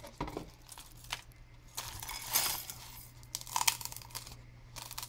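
Egg frozen hard in liquid nitrogen breaking apart and spilling in pieces from a foam cup onto a plate: a scatter of light clicks with a short crackle about two and a half seconds in.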